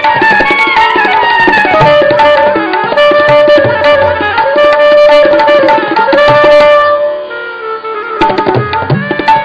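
Two saxophones, one of them a straight soprano, playing a melody in long held notes over tabla accompaniment. The saxophone line drops away about seven seconds in, and the tabla strokes carry on.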